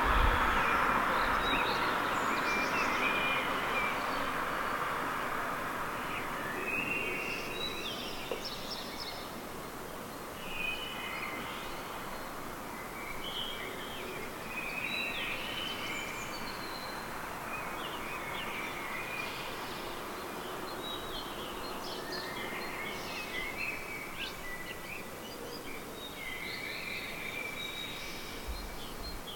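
Songbirds singing at night in short, varied chirping phrases that keep repeating, over a steady background of city noise. A passing vehicle's noise is louder at first and fades over the first several seconds.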